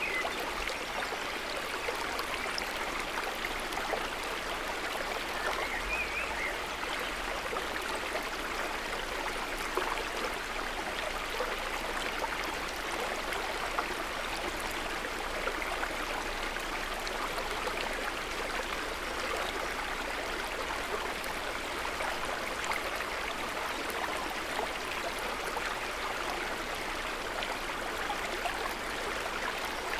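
River water running and splashing steadily, an even rushing sound with fine gurgling detail.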